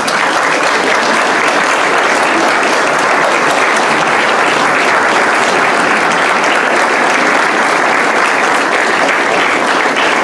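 A congregation applauding, dense sustained clapping that builds up just before the start and holds steady.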